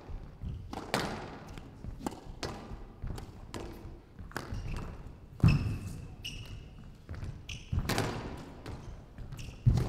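Squash rally: sharp thwacks of the ball off racquets and the court walls, coming roughly every second, the loudest about halfway through. Short high squeaks of court shoes on the floor come in between.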